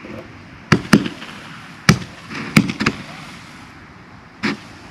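Fireworks going off: about six sharp bangs at irregular intervals, some in quick pairs, over a faint steady hiss.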